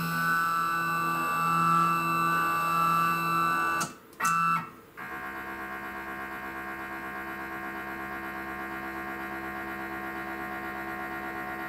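Electronic keyboard background music for about the first four seconds. It cuts out and returns briefly, then gives way to a steady electrical hum with a slight fast pulse.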